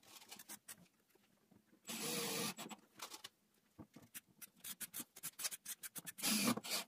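Light irregular clicks and rubbing from hands working screws and small plastic printed parts, with a short louder scrape of noise about two seconds in.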